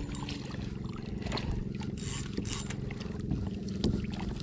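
A hooked black drum splashing at the surface beside a kayak as it is reeled in: a few soft splashes and ticks over a steady low hum.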